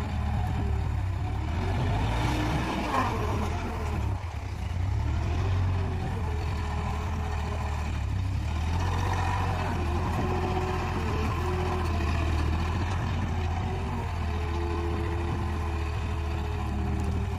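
Tractor's diesel engine running steadily under load while the front-end loader works, its note rising and falling as the bucket is driven and lifted.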